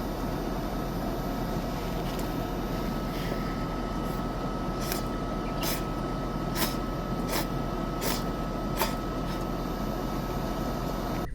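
Steady vehicle road and cabin noise, as inside a van on the move. Near the middle, a run of about six even clicks comes a little under a second apart.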